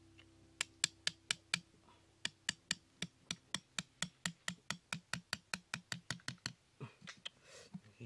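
Rapid, even hammer taps, about five a second, as a small hammer drives a thin wooden stick through cardboard into a soil wall. The tapping stops after about six seconds and gives way to soft scraping in the dirt.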